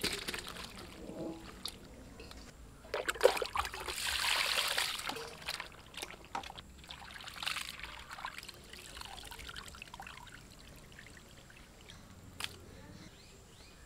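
Peeled prawns being washed by hand in a steel bowl of water: pouring, splashing and trickling, with intermittent clicks of the prawns and bowl. The loudest pour comes for about two seconds, starting three seconds in.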